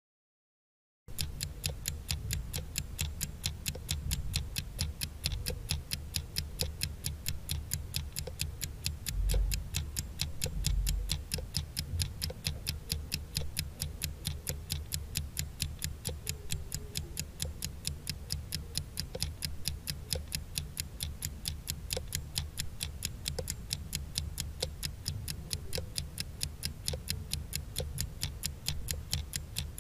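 Clock-ticking sound effect counting down a timer: a quick, even train of ticks that starts about a second in.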